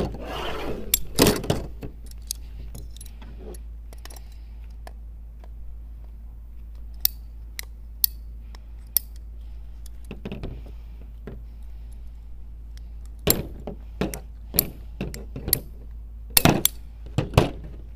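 Ratcheting PVC pipe cutter clicking in clusters as it is squeezed and ratcheted through 3/4-inch PVC pipe, with sharp snaps from the blade; the thicker pipe takes several squeezes per cut. The clicks come thickest in the last few seconds.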